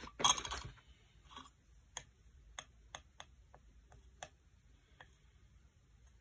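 Spatula scraping across a mixing board, then a string of light, irregular ticks and taps as it works tonoko powder into urushi lacquer to make rust lacquer (sabi urushi).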